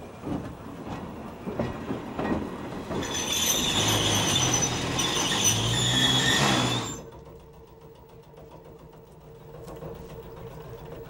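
Kurihara Electric Railway ED20 electric locomotive moving slowly over the tracks. Its wheels click over the rail joints, then from about three seconds in they give a loud, high-pitched squeal over a low hum. The squeal cuts off suddenly about seven seconds in, leaving a quieter steady background.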